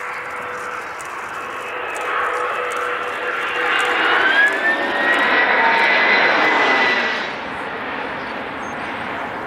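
Airbus Beluga XL's twin Rolls-Royce Trent 700 turbofans passing low overhead: the jet noise builds, is loudest with a whine that glides up and holds in the middle, then drops off sharply about seven seconds in as the aircraft goes past.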